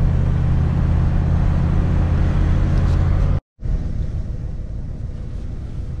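Camper van driving, heard from inside the cabin: a loud, steady low engine and road drone. About three and a half seconds in it cuts off suddenly, then comes back quieter and rougher.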